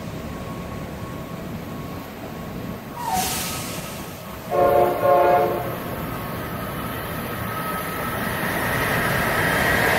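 Amtrak Acela Express high-speed electric train approaching and sounding its horn about halfway through, a single blast of about a second. The rumble of the oncoming train then grows steadily, with a high whine building near the end.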